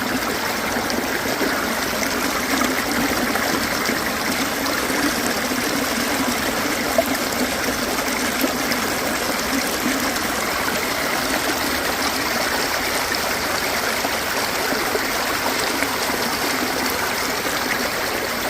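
Stream water running and trickling steadily.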